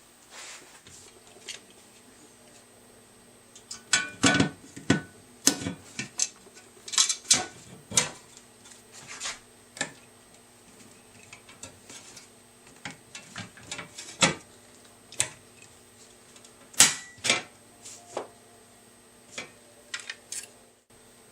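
Irregular metallic clinks and taps as rivets are fitted through the polished steel fan blades and the wooden handle pieces. The loudest knocks come in a cluster about four to eight seconds in and again near seventeen seconds.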